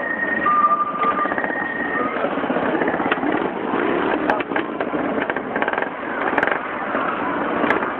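Big cruiser motorcycles riding past slowly in a line, their engines running together at low speed. A two-tone hi-lo siren alternates over them for the first two seconds or so.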